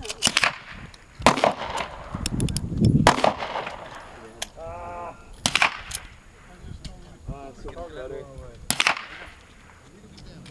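Heritage Rough Rider .22 LR single-action revolver firing five sharp shots, spaced irregularly one to three seconds apart.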